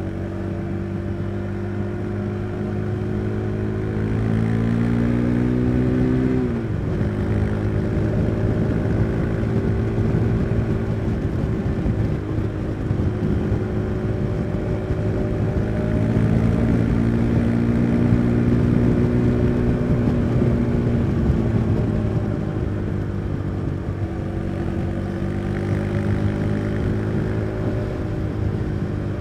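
Husqvarna Svartpilen 401's single-cylinder engine under way: revs climb for about six seconds, drop sharply as the bike shifts up a gear, then rise and ease off twice more.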